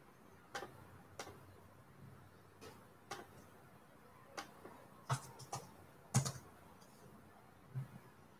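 Sparse, irregular clicks of someone working a computer keyboard and mouse, with a couple of heavier taps past the middle.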